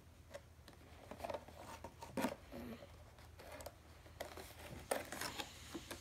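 Thin clear plastic bag crinkling and rustling as it is handled, with small clicks and taps against a clear plastic box. It comes in short, irregular crackles, the loudest about two seconds in and again near the five-second mark.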